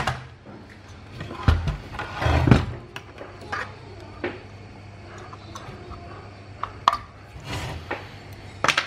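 Handling noise from an inverter welding machine's circuit board and metal case being moved and turned over: scattered sharp clicks and knocks, with a louder clatter about two seconds in and another burst near the end.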